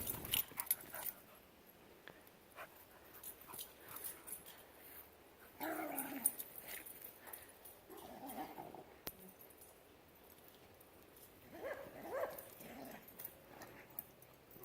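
A dog vocalising faintly in three short, pitched bouts, about six, eight and twelve seconds in, with quiet between them.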